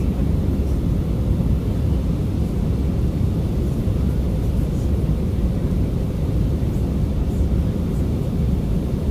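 Airbus A319 jet engine and airflow noise heard inside the passenger cabin: a steady, deep rumble with a faint hum on top.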